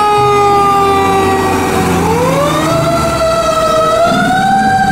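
Fire truck siren wailing. Its pitch slowly falls for about two seconds, then climbs again and holds high.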